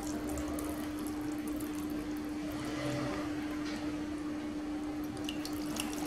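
Very thick kiwi-and-avocado smoothie pouring slowly from a blender jug into glass jars, over a steady hum. A few faint clicks come in the second half.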